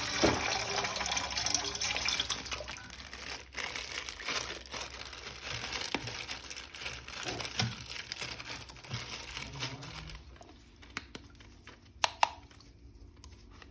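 Water running from a tap, with splashing as something is rinsed under it. The running water stops about ten seconds in, and a few light clicks follow.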